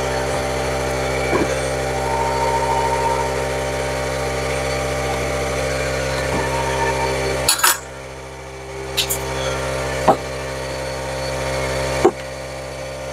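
Small air compressor running steadily, cutting out about seven and a half seconds in with a short sharp burst. After that a few single knocks of wood and clamps being handled.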